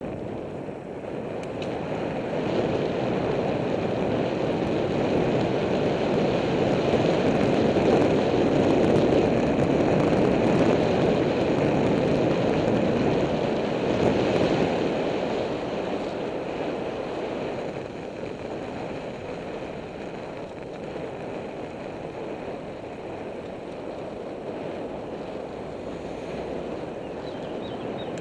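Wind rushing over the microphone and road noise while riding a bicycle, swelling for the first several seconds and then easing off about halfway through.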